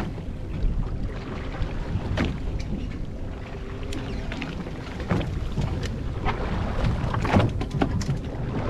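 Wind buffeting the microphone and choppy water slapping against a small fishing boat's hull, a steady low rumble with scattered light knocks and splashes, busier near the end.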